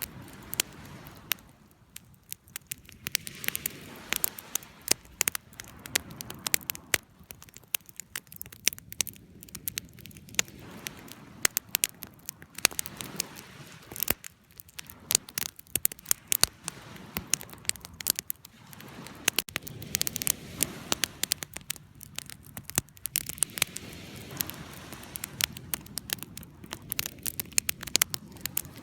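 Wood fire crackling: a dense, irregular stream of sharp pops and snaps over a steady low rush of burning.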